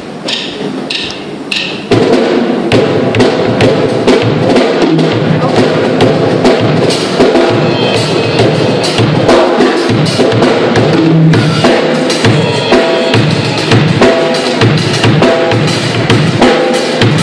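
A few sharp clicks, then about two seconds in a drum kit and band come in loudly, playing a steady beat with kick and snare: a live music performance.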